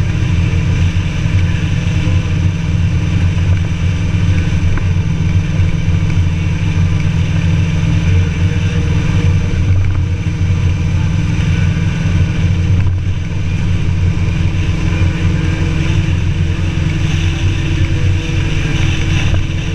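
Motorcycle with a sidecar cruising at a steady speed: the engine runs evenly under a constant rush of wind and road noise.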